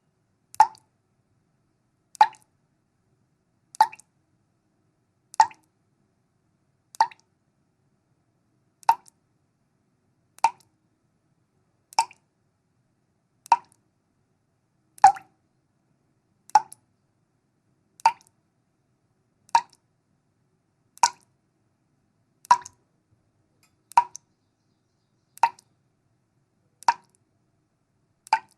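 Water dripping from a leak, single drops falling into water at a steady pace of about one every second and a half. Each drop is a short plop, with silence between.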